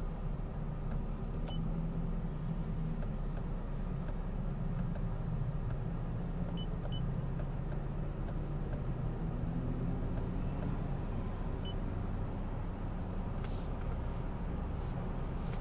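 2020 Lexus ES 350's 3.5-litre V6 idling with a steady low hum, heard from inside the cabin.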